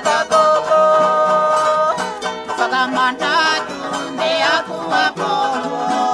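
Music: a song with plucked string instruments playing.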